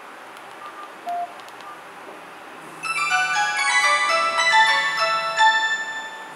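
Nokia 215 phone playing its ringtone through its small loudspeaker as a preview while the ringtone volume is set: a bright synthetic melody of clean overlapping tones, starting about three seconds in and fading out near the end. A single short keypad beep sounds about a second in.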